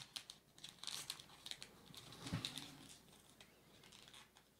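Faint rustling and light ticks of a foil booster pack being picked up and handled, with a soft low bump about two seconds in.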